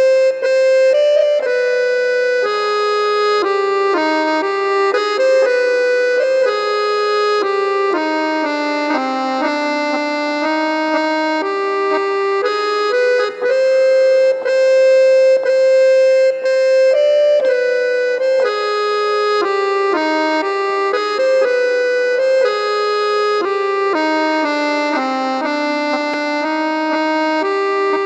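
Harmonium playing a slow lehra in Raag Kirwani, the repeating melody a tabla player practises vilambit teental to at 60 bpm. The sustained notes step down to a low point and climb back, the phrase coming round about every sixteen seconds, over a steady low drone.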